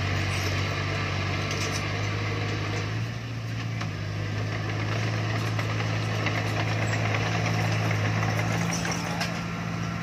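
Diesel engine of heavy earthmoving machinery running steadily, with a constant low hum.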